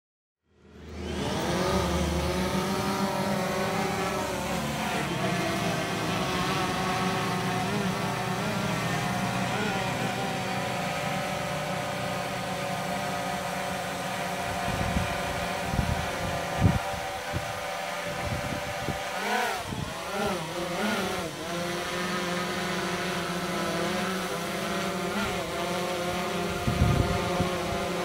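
DJI Phantom 3 Professional quadcopter's motors and propellers buzzing as it lifts off and hovers overhead, a steady multi-tone hum whose pitch shifts as it climbs in the first several seconds. Uneven low buffeting of wind on the microphone comes and goes near the middle.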